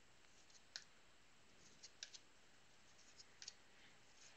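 Faint clicks of football trading cards being flipped through by hand, the card stock ticking against the stack as each card is moved. A few soft clicks, several of them bunched around the middle.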